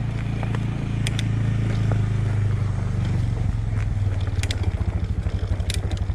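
Adventure motorcycle engine idling: a steady low hum that turns into a fast, even putter about halfway through, with a few light clicks over it.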